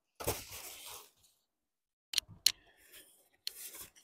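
Unboxing sounds: about a second of plastic wrapping rustling, then two sharp knocks and some scraping as a polystyrene foam packing insert is pulled out of a cardboard box, with a short rustle near the end.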